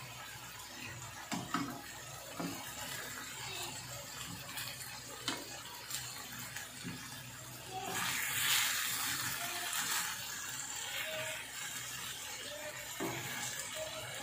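Marinated chicken pieces sizzling in hot oil in a frying pan, with a few clicks of tongs as the pieces are turned. The sizzle swells louder for a couple of seconds around the middle.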